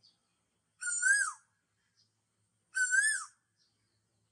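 A high whistled call with a wavering pitch, about half a second long, comes twice, roughly two seconds apart. The two calls sound alike.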